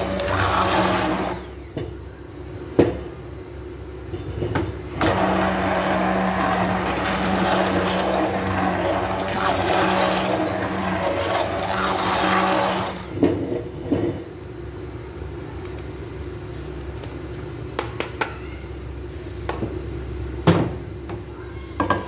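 Hand-held immersion blender running in a pan of masala, puréeing it into a smooth gravy base. It runs twice with a steady hum: briefly at the start, then for about eight seconds more, then stops. A few sharp knocks come in the pauses.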